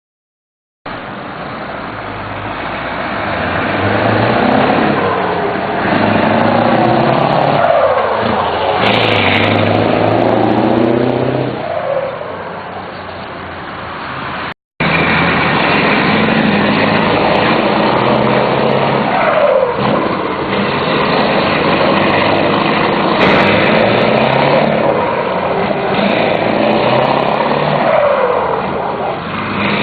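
The turbocharged V8 diesel of a Scania 144 530 truck pulling hard through the gears, its engine and turbo rising in pitch and dropping back at each gearchange. The sound breaks off for a moment about halfway through.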